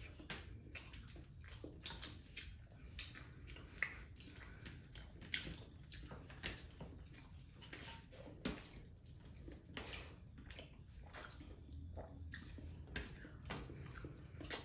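Close, wet eating sounds: hands squishing and mixing curry-soaked rice and fish, with chewing and lip smacks, heard as many short, irregular sticky clicks.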